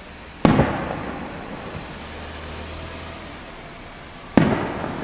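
Fireworks booming: two loud bangs about four seconds apart, each trailing off in an echo over a second or so.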